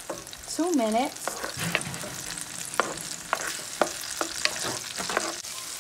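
Chopped red onion and minced garlic sizzling in oil in a nonstick frying pan while a wooden spoon stirs them, tapping and scraping irregularly against the pan.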